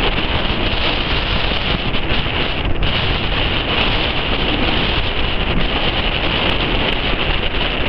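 Wind buffeting the microphone over a steady, distant jet roar from the Avro Vulcan's four Rolls-Royce Olympus turbojets.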